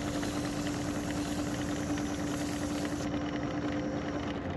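Wood lathe running with a steady hum while a turning tool cuts inside the bore of a spinning 3D-printed wood-fibre PLA and epoxy cylinder. Right at the end the hum starts to fall in pitch as the lathe slows.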